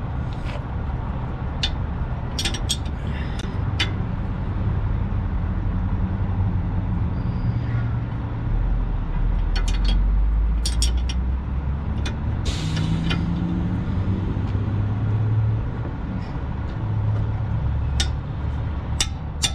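Sharp metal clicks and taps of a combination wrench working a nut on a truck axle's air-spring mount, over a steady low engine rumble. A short hiss comes about twelve and a half seconds in.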